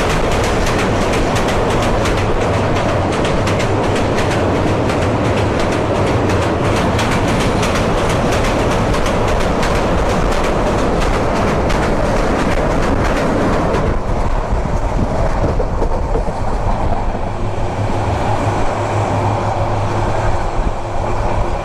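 Metre-gauge passenger train running fast across a river bridge, wheels and coaches clattering loudly. About 14 seconds in the clatter eases into a steadier, duller rumble.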